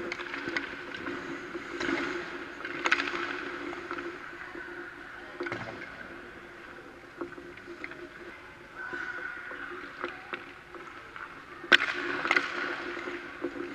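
Ice hockey skates swishing and scraping on the ice, with scattered stick and puck clicks over a steady low hum, and one sharp crack of a shot near the end.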